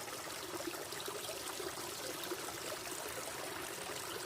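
A small stream of runoff water running steadily downhill over rocks and forest debris.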